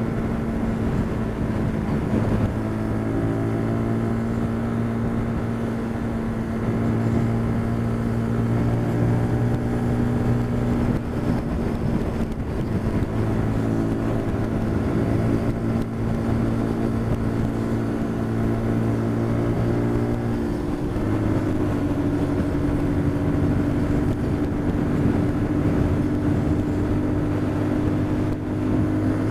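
Motorcycle engine running steadily while riding at road speed, mixed with wind and road noise; its pitch shifts a few times, most clearly about two-thirds of the way through.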